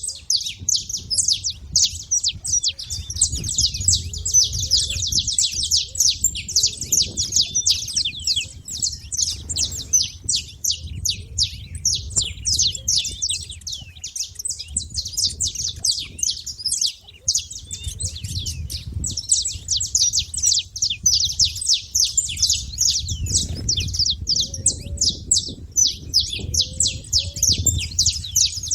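Saffron finches chirping without a break, a dense stream of rapid high chirps, with a low rumble beneath.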